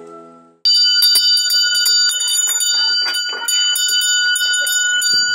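A small school bell rung rapidly and without a break, calling the children in to class; it starts abruptly about half a second in as background music fades out.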